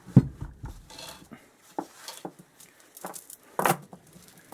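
Worn motorcycle primary chain handled on a workbench: a dull thump just after the start, then scattered small metallic clicks and clinks, with a sharper clink near the end.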